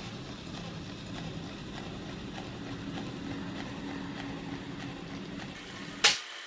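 Faint steady room noise with a low hum, then a sudden sharp pop about six seconds in.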